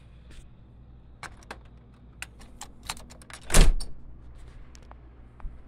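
A scatter of sharp clicks and taps, then one louder thump about three and a half seconds in, followed by a few fainter clicks.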